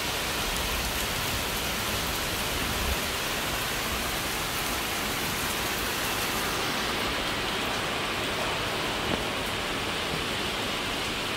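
Heavy monsoon rain falling: a steady, even hiss that turns slightly duller after about six seconds.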